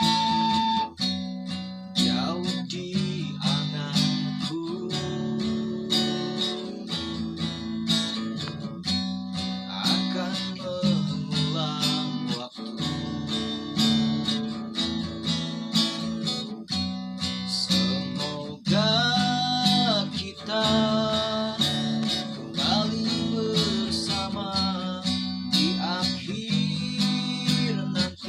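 Acoustic guitar played in repeated strummed and plucked chords, with a melody line over it that bends in pitch about two-thirds of the way through.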